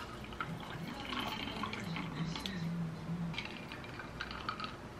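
Tea poured from a glass teapot into a glass of ice, trickling and dripping over the ice cubes, with a few light clinks in the glass near the end.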